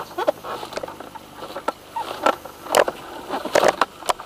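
Irregular knocks, clicks and rustles of handling noise as a hang glider is shifted about on the ground, picked up by a camera mounted on its frame.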